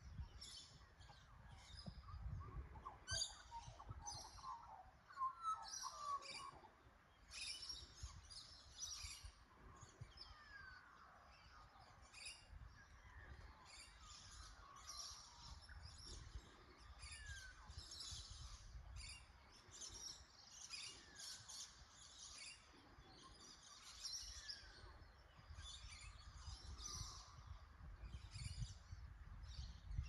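A faint bush chorus of several wild birds: many short, high chirps with now and then a falling whistle, a few times.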